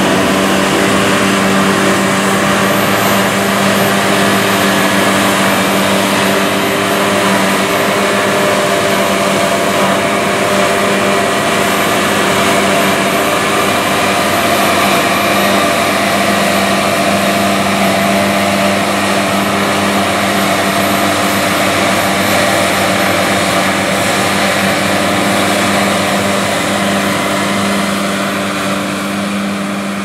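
Claas Lexion combine harvesting wheat and unloading on the go into a tractor-drawn grain cart running alongside: the diesel engines, threshing and unloading auger together make a loud, steady mechanical drone with several steady hum tones. It eases off slightly near the end.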